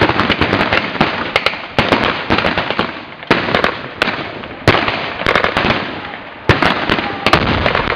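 Rapid, irregular blank gunfire from rifles and small arms in a staged battle, shots overlapping one after another, with a few louder bangs about halfway through and past the three-quarter mark.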